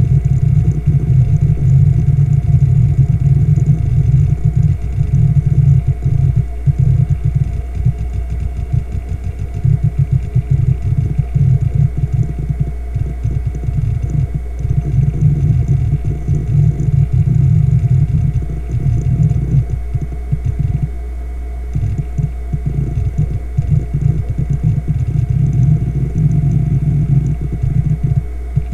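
A Fujitsu MEA3320BT 320GB SATA hard drive running, its 3,600 RPM fluid-bearing spindle giving a steady hum, with rapid irregular seek chatter from the heads reading data as the operating system loads.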